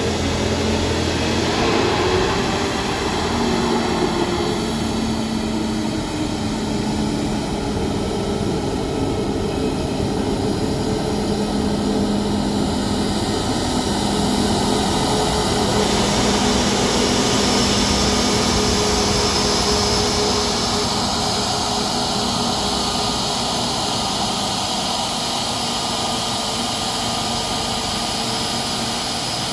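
Airbus A320 jet engines running: a steady rushing noise with low humming tones, and the higher hiss grows stronger about halfway through.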